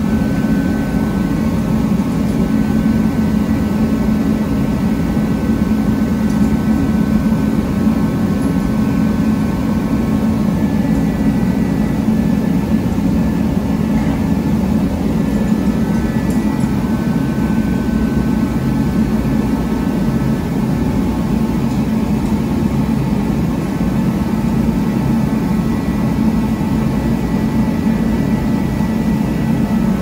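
A steady, even machine roar, like a forced-air heater running, with a few faint held tones over it that come and go.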